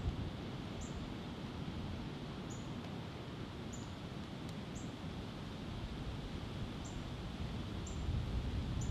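A small bird's short, high chip notes, each dropping slightly in pitch, repeated about once a second with uneven gaps, over a steady low rumble.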